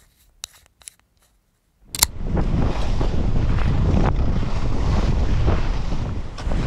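A few faint ticks, then about two seconds in a sudden steady rush of wind on the microphone with skis running over snow as the skier heads downhill.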